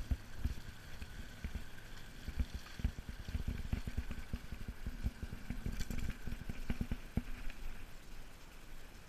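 Wind buffeting and rumbling on a head-mounted camera's microphone, with scattered clicks and a faint steady high tone behind it.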